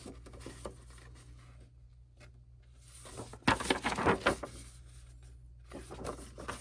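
Album inclusions (paper and plastic items) being handled: soft rustling with a short cluster of clicks and crinkles about three and a half seconds in, over a steady low room hum.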